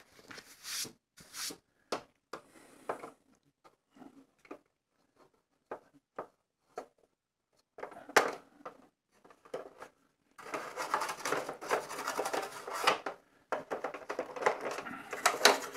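A few scattered light plastic clicks and knocks as the toy ship is handled, then, about ten seconds in, a toothbrush scrubbing dust out of the ridged plastic underside of a vintage Star Wars Imperial Shuttle toy: a dense scratchy brushing that breaks off briefly and starts again.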